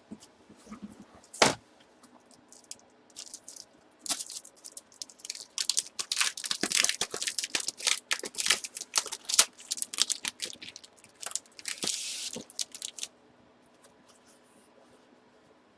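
Packaging being torn open and crinkled by hand: a dense run of crackles and rips for about nine seconds, after a single sharp click about a second and a half in.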